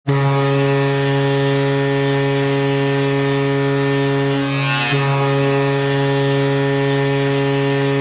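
Ice hockey arena goal horn sounding one long, steady, low buzzy tone to signal a goal, with a brief waver a little past halfway.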